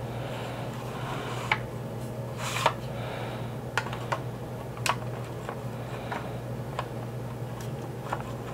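Light, irregular clicks and taps of hard plastic toy parts being handled: the 1983 G.I. Joe Skystriker's toothed wing being fitted against the fuselage. A steady low hum runs underneath.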